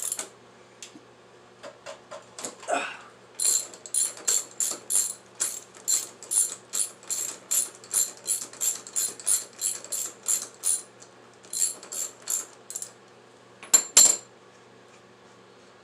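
Socket ratchet wrench being worked back and forth on a nut, a steady run of sharp clicks about three a second that stops, followed by a couple of louder clicks near the end.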